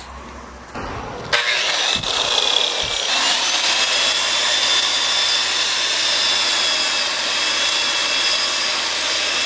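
Power tool, an angle grinder, cutting into a metal skatestopper knob; it starts about a second in and runs steadily with a high whine.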